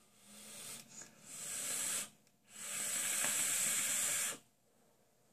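A hit from an e-cigarette vape mod with freshly dripped wicks. An airy hiss as air is drawn through the atomizer, broken once about a second in, then after a short pause a steady hiss of about two seconds as the vapour is blown out.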